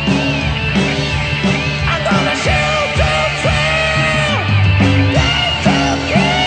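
Live rock band playing loud, with electric guitar and a sung line over it.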